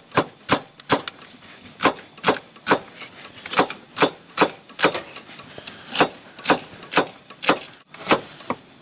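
Knife slicing celery and carrots on a plastic cutting board: an even run of sharp clicks, two to three a second, each one the blade striking the board.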